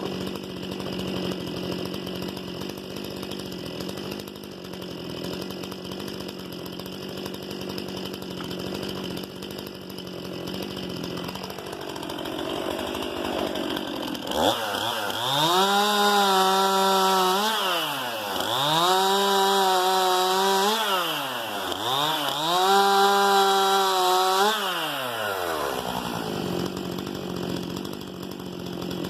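Stihl MS 261 C-M two-stroke chainsaw idling, then opened to full throttle about halfway in. It is held high three times with two short dips between, then drops back to idle near the end.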